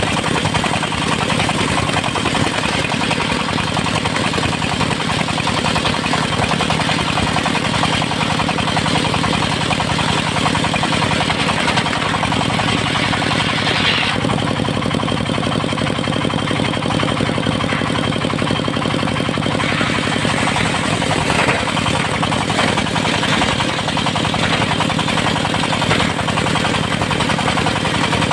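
Engine of a mobile circular sawmill running steadily, with its sound changing about halfway through.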